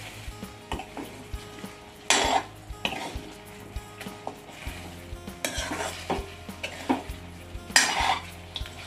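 A metal ladle scraping and clanking against a metal kadai as chicken pieces are stirred and fried, with a sizzle underneath. The strokes are irregular, with louder scrapes about two seconds in, around five and a half seconds and near the end.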